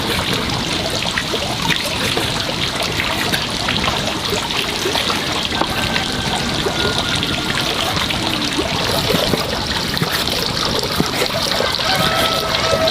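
Water running and trickling steadily close by, with many small splashes and drips.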